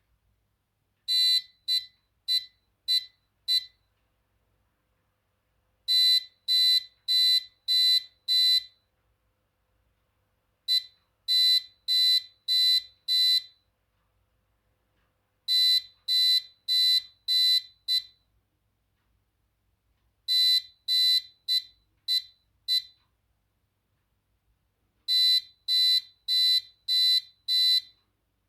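Arduino-driven electronic buzzer beeping Morse code in a high, piercing tone. The beeps come in six groups of five short and long beeps each, the five-element pattern of Morse digits, spelling out geocache coordinates.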